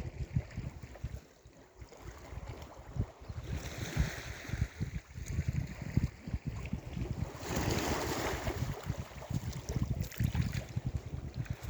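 Sea waves breaking and washing up the shore, with one surge of surf a few seconds in and a louder one past the middle. Gusty wind rumbles on the microphone throughout.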